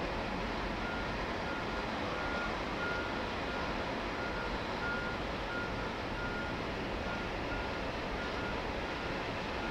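Backup alarm beeping at a steady pace, about three beeps every two seconds, over a steady rumbling hiss.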